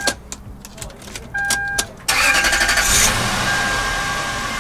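A few clicks and a steady electronic chime, then about two seconds in the starter cranks briefly and the 1998 Toyota Land Cruiser 100 Series' 4.7-litre V8 catches and keeps running. It starts right up with the new accelerator pedal position sensor fitted.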